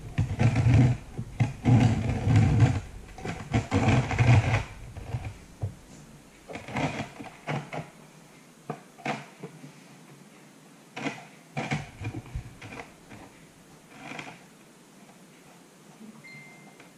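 A run of short buzzy, rasping bursts, then scattered light knocks and scrapes as ceramic wall tiles are handled and pressed into place around an electrical socket box.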